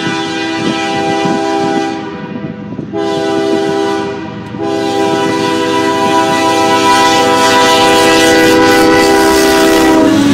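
Multi-chime air horn of a BNSF diesel freight locomotive blowing in long and short blasts: it sounds until about two seconds in, again for about a second, then is held for over five seconds. The chord drops in pitch right at the end as the locomotive passes. Diesel engine and wheel-on-rail noise run beneath it.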